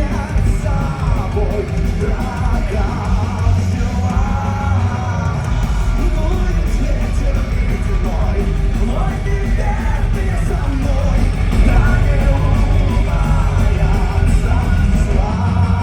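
Heavy rock band playing with a singer's voice over it, holding long wavering notes above thick drums and guitars.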